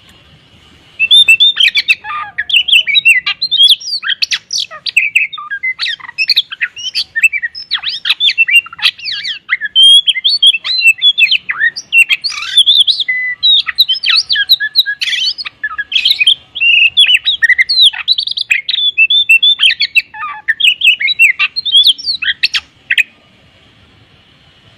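Oriental magpie-robin (kacer) singing a loud, rapid, unbroken song of varied whistles, chirps and harsher squawky notes, loaded with mimicked phrases. The song starts about a second in and stops shortly before the end.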